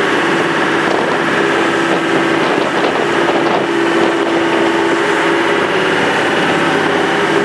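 Motorboat water taxi's engine running steadily under way, a constant drone over a rush of water and wind noise.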